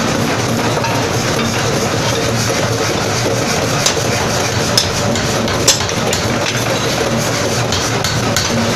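A hand hammer striking a steel tool set on a hot forging in a die: three sharp metal clinks about a second apart over a steady din.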